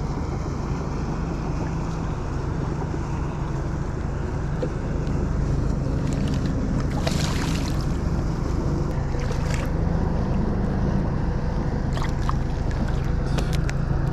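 Wind on the microphone and water around the kayak under a steady low hum, while a hooked striped bass is fought. There is a brief splash about seven seconds in and a few sharp clicks near the end.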